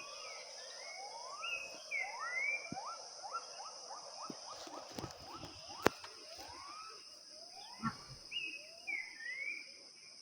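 Forest ambience: a steady high-pitched insect drone, with birds calling in short rising whistled notes, including a quick run of rising notes about three seconds in. A sharp click sounds near the six-second mark.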